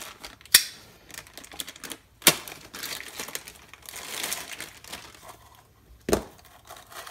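Plastic packaging bag crinkling as it is handled and opened, with three sharp clicks from the items being handled: about half a second in, a couple of seconds in, and near the end.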